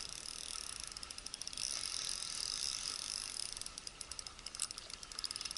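Spinning reel being cranked to wind in a small fish on a bent rod, giving a fast, even run of light mechanical clicks.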